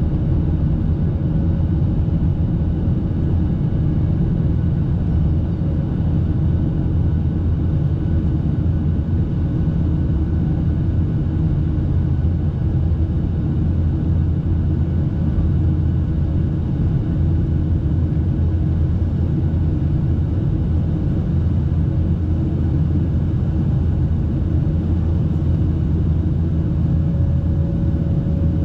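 Boeing 737-800 cabin noise during climb-out after takeoff: the CFM56-7B engines at climb thrust and the airflow make a loud, steady, mostly low drone, with a few faint steady tones above it.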